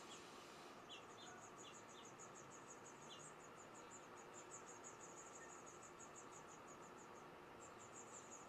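Faint, high-pitched chirping of an insect, pulsing about six times a second and breaking off briefly near the end. A few short, lower chirps sound in the first three seconds.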